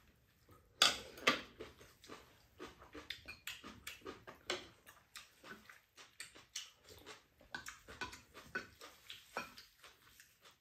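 Two people eating at a table: chewing and slurping mouth sounds, with spoons and chopsticks clicking against ceramic bowls in many short, irregular sounds. The loudest comes about a second in.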